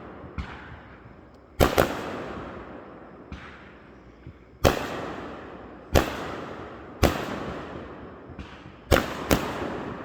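Fireworks going off: a series of sharp bangs, about eight in ten seconds, each followed by a rumbling echo that fades over a second or two.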